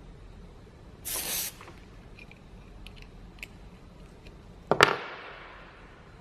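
Short hiss of CO2 gas escaping as a cartridge is pierced while being screwed into an airsoft pistol. It is followed by a few small clicks, then a loud sharp clack near the end with a fading hiss after it.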